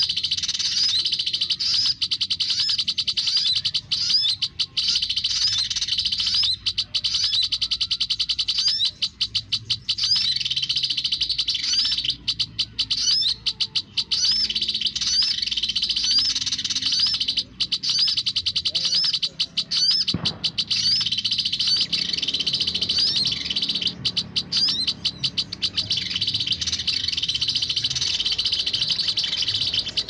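Olive-backed sunbird calls: a fast, unbroken stream of high chirps, the lure call (suara pikat) used to draw sunbirds to the trap perch.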